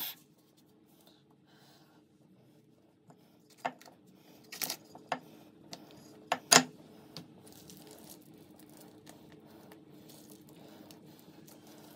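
Sticky mochi dough being pulled apart and peeled off a wooden rolling pin on a counter: after about three seconds of near silence, scattered soft clicks, taps and tearing sounds, over a faint steady hum.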